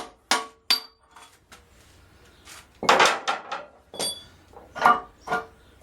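A small hammer striking a chisel on steel, chipping at welded-on metal on a tractor housing: about six sharp metallic strikes at irregular intervals, some with a brief ring.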